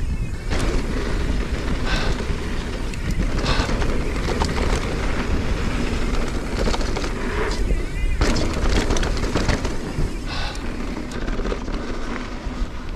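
Wind buffeting the camera microphone and tyres rolling over a dirt trail as a mountain bike is ridden, with scattered short clicks and rattles.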